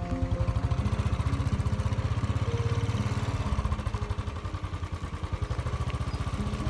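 Motorbike engine running under way, heard from on the bike, a fast low pulsing that eases slightly about four to five seconds in.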